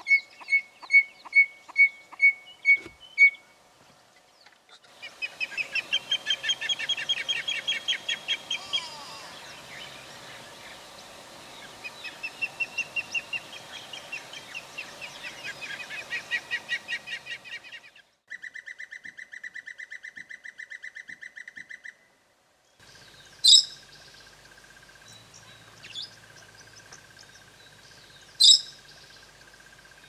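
A sequence of different wild birds calling in turn. First comes a run of evenly spaced high piping notes, then long fast trilling phrases, then a short buzzy rattle. Last come two loud, sharp shrill calls over a steady high tone.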